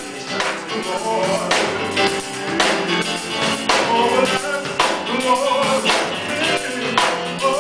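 Gospel choir singing with keyboard and drum-kit accompaniment, a steady beat about once a second.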